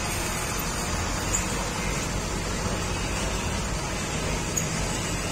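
Heavy box truck's diesel engine running steadily as the truck moves slowly at close range, a low even rumble.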